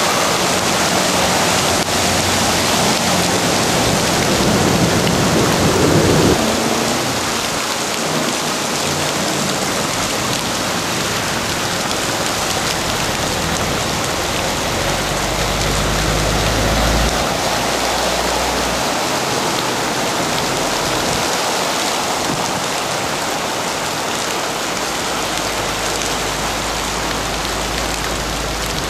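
Heavy rain pouring down steadily, with vehicles splashing through flooded street water. A low rumble swells a few times: about five seconds in, in the middle, and near the end.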